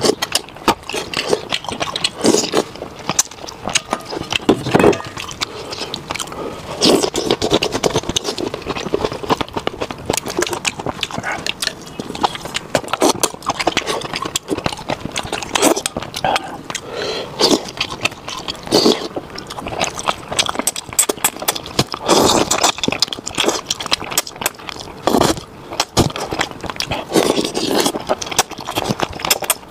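Close-miked mukbang eating: wet chewing, lip-smacking and slurping of saucy food, as a steady run of sharp clicks and smacks.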